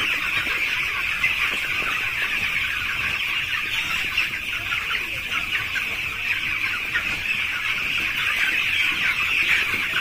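A large flock of young broiler chicks cheeping together: many high, short peeps overlapping into a steady din.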